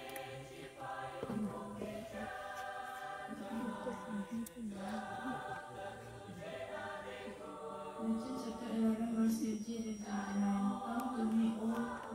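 Several voices singing together: a slow song with long held notes.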